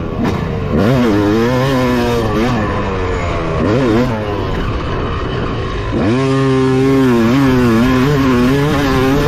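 Yamaha YZ250 single-cylinder two-stroke dirt bike engine with an FMF pipe, revving up and down through several quick rises and falls. About six seconds in it sweeps sharply up and is held high for a moment under hard acceleration, then wavers as the throttle is worked.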